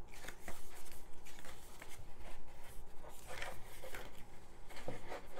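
Pages of a perfect-bound paperback book being turned and flipped by hand: a series of soft paper rustles and brushes.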